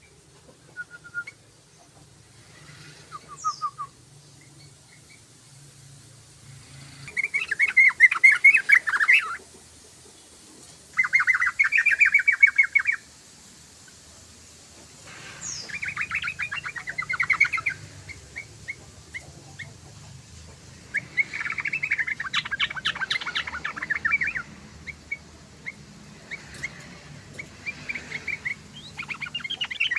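Yellow-vented bulbul (trucukan) singing: loud bursts of rapid chattering notes, each about two seconds long, come every few seconds, with short single chirps between them.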